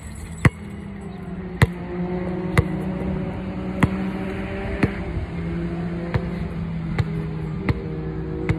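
A basketball being dribbled on an outdoor asphalt court: single sharp bounces, nine of them at roughly one-second intervals. Sustained musical tones run underneath, with the chord changing a couple of times.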